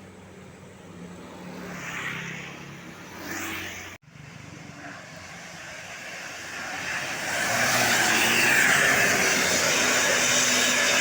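A road vehicle passing close by: a low engine hum at first, then engine and road noise swelling from about six seconds in to a loud, steady peak. The sound cuts out sharply for an instant about four seconds in.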